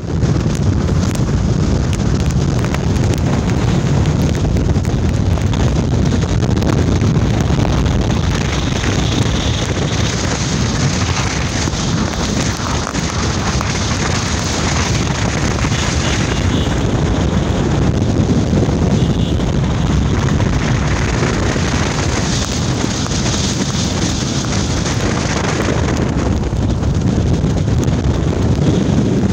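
Wind buffeting the microphone of a phone held at the window of a moving car, a loud steady rushing over the car's road noise.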